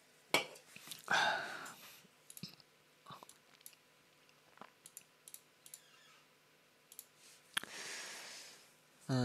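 Scattered small, sharp clicks at irregular intervals, with breaths close to the microphone about a second in and again near the end. A low voiced hum begins right at the close.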